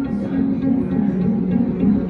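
Live looped string music: plucked string notes repeating in layers through delay and loop pedals. A lower repeating note comes in shortly after the start.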